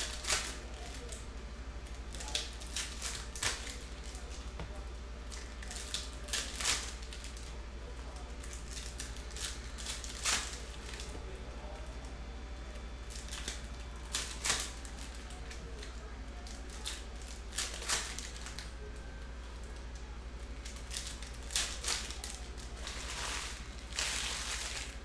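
Trading-card packs being opened and handled: wrappers crinkling and tearing and cards clicking as they are flipped, in short irregular crackles with a longer tear near the end. A steady low hum runs underneath.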